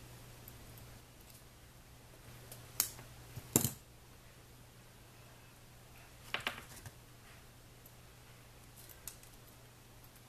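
Steel jewelry pliers clicking against each other and the head-pin wires as the wires are gripped and twisted: a few sharp clicks, the loudest about three and a half seconds in and a small cluster a little after six seconds, over a faint low hum.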